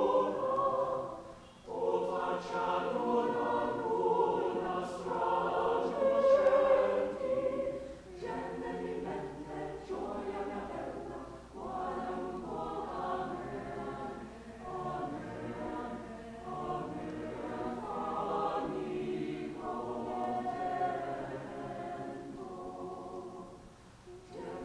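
Mixed choir of men's and women's voices singing a piece from the Italian Renaissance in several parts. There is a short break about a second and a half in, and the singing is louder for the first several seconds, then softer.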